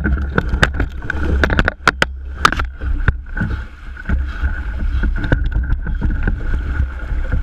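Kayak paddled through fast, shallow creek water: the paddle splashes and knocks, and water rushes around the hull. Sharp clicks and knocks come thick in the first three seconds and thin out after, over a steady low rumble.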